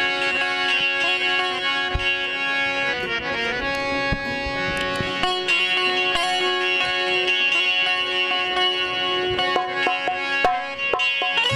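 Instrumental Sufi folk music with no singing: steady held drone notes with plucked strings over them and scattered drum strokes.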